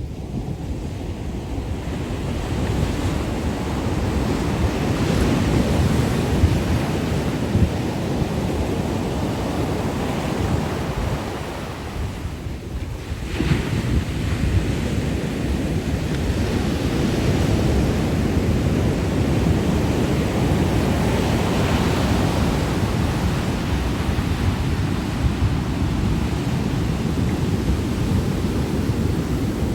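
Ocean surf washing and breaking continuously, swelling and easing, with a brief lull about halfway through before the next wave surges in; wind buffets the microphone.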